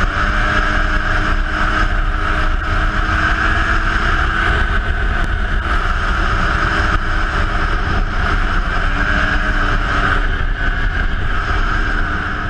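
2007 Polaris IQ 600 HO snowmobile's two-stroke twin engine running steadily at cruising speed under way, heard with wind and track noise.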